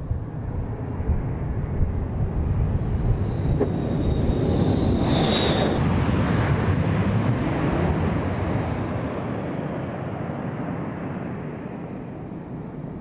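Jet engines of a B-1B Lancer bomber on landing approach: a rumbling roar with a high whine falling slightly in pitch, building to its loudest about halfway through, then easing off.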